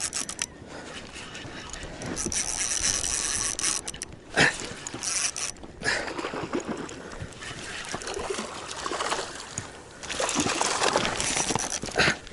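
Water splashing against and around a kayak while a fish is played on a rod, with louder bursts of splashing about two seconds in and again near the end.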